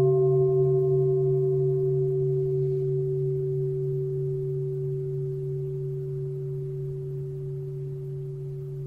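A large meditation bowl bell rings on after a single strike, its tone slowly fading, with a low hum that pulses beneath it.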